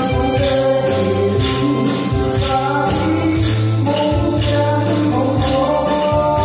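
Music from a Hakka-language song with a steady beat, with jingling tambourine-like percussion on the beat about twice a second.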